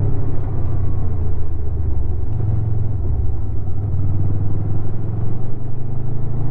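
2016 Honda VFR800's V4 engine running through its stock exhaust while riding. The engine note drops about two seconds in, then rises steadily again as the bike pulls.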